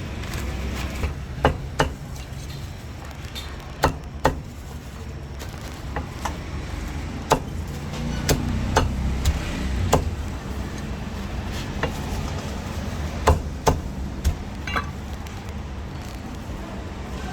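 A cleaver chopping roast meat on a wooden block: irregular sharp knocks, often in pairs, with a steady hum of street traffic beneath.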